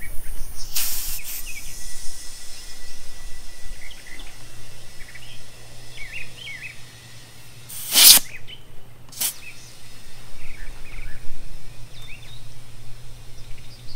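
Compressed air hissing in short blasts from an air hose chuck on a tire's valve stem, inflating a freshly hand-mounted tire to seat its bead on the wheel; the loudest blast comes about eight seconds in. Birds chirp throughout, and a low steady hum comes in about four seconds in.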